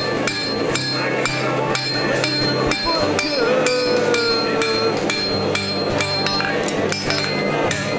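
Steady run of hammer blows on hot blade steel at the anvil, about three a second, each strike ringing.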